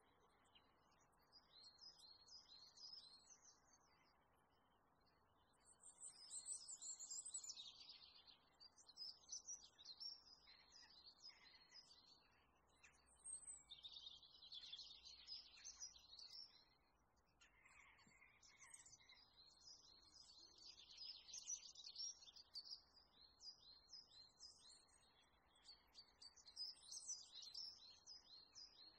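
Faint birdsong: many short, high chirps and twitters from several birds, coming in bursts with short lulls between, over a faint outdoor hiss.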